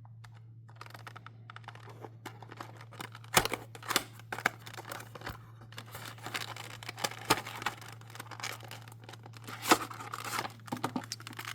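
Plastic and paper packaging of a replacement iPhone battery being opened and handled: irregular crinkling and tearing with scattered sharp clicks and taps, over a steady low hum.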